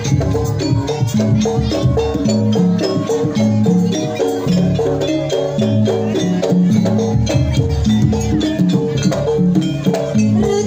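Jaranan gamelan music: tuned metallophones ringing short notes in a repeating melody over steady drum and percussion strokes.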